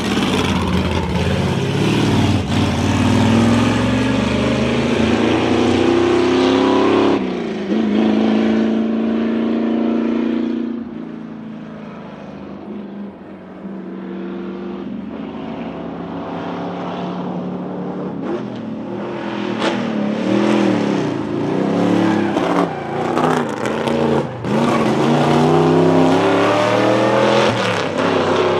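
Big-block V8 of a 1963 Ford Galaxie 500 race car, thought to be a 7.0-litre 427, accelerating hard uphill. Its note climbs in pitch through the gears, with a sharp drop at an upshift about seven seconds in. It fades as the car pulls away, then builds loud again with several quick gear changes toward the end.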